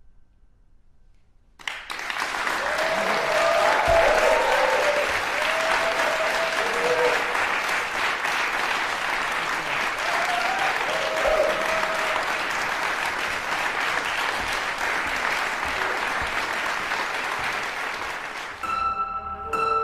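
Audience applause breaking out suddenly after about a second and a half of silence, with a few shouts from the audience in the first half. It dies away near the end, where a ringing, bell-like tone starts.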